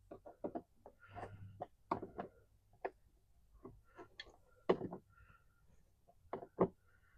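Irregular light clicks and knocks of parts and tools being handled, with a couple of sharper knocks about halfway through and near the end.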